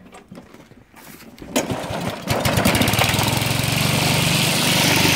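The Remington wheeled string trimmer's 159cc overhead-valve engine starting up. It catches about a second and a half in, picks up speed and then runs steadily.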